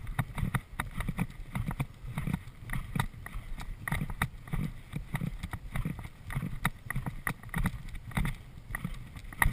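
Horse galloping on grass, heard from the saddle: a steady rhythm of hoofbeats and stride thumps, about two to three a second, with clicks from the tack.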